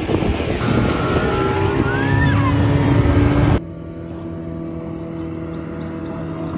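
Motorboat under way: engine noise mixed with loud wind and rushing water. About three and a half seconds in it cuts abruptly to the boat's engine running at a steady hum.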